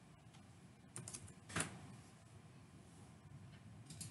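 A few faint computer keyboard keystrokes: a quick cluster about a second in, a louder one just after, and another pair near the end.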